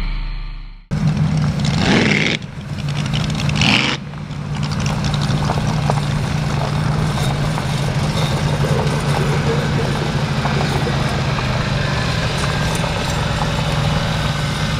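Twin-turbo 555 cubic inch EFI drag boat engine revved twice, then idling steadily.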